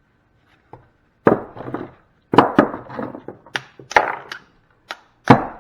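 About nine sharp knocks and blows, irregularly spaced and each with a short ring, as the scrap fuse holder's metal and plastic parts are struck apart by hand.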